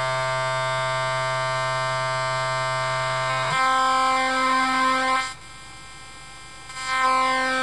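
Atari Punk Console, a 555-timer square-wave noise synth, putting out a steady low electronic tone. About three and a half seconds in, as its knobs are turned, the pitch jumps up; the tone then drops much quieter for about a second and a half and comes back at the higher pitch.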